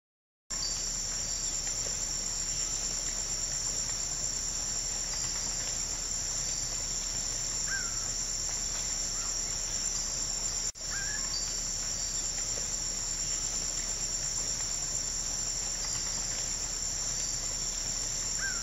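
Steady high-pitched chorus of insects, with a few faint short bird chirps; the sound breaks off for an instant about ten seconds in.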